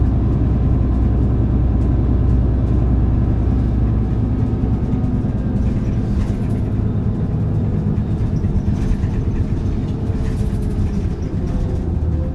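Running sound of a Hino KC-HU2PMCE city bus, heard from inside the cabin: the diesel engine drones steadily, easing off about halfway through. Brief rattles come in the second half, and a faint whine falls slowly in pitch near the end.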